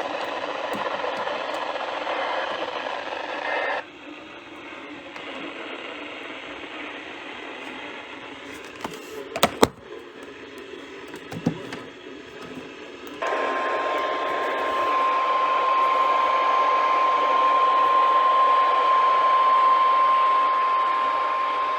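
Weather radio receiver hissing with static on a weak signal, with a few sharp clicks in the middle. About two-thirds of the way in, the NOAA Weather Radio 1050 Hz warning alarm tone starts: one steady, unbroken tone heard through the static, marking the start of an alert broadcast.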